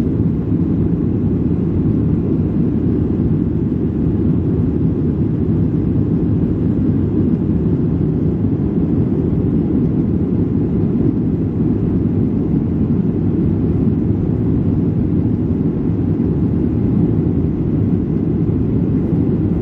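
Jet airliner cabin noise in the climb after takeoff: a steady low roar of the engines and airflow, heard from a window seat.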